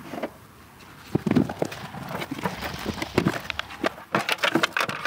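A run of sharp knocks and clacks, a few a second, starting about a second in.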